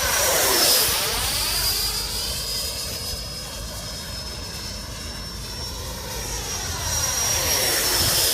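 Electric ducted fan of a radio-controlled F-16 model jet whining as it flies by twice, louder with a slight drop in pitch about a second in and again near the end. The fan is a Freewing balanced 1450KV unit.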